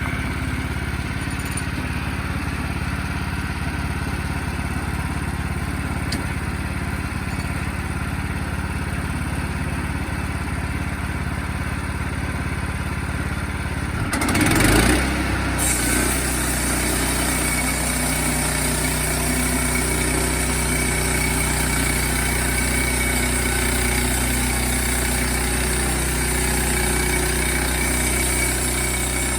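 Sawmill's gas engine running steadily. About halfway through it surges briefly, then settles into a new steady note with a high hiss added on top.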